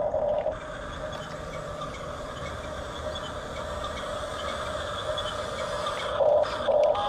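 Hunia 1569 toy RC bulldozer running, its small electric motors and plastic gears giving a steady whine, with two short louder bursts near the end.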